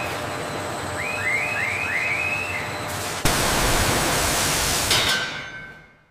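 Steady rushing hiss of liquid flowing through process equipment, with a faint hum and four short chirping squeaks in the first half. About three seconds in it jumps suddenly to a louder gush of liquid pouring from a pipe outlet, which then fades out.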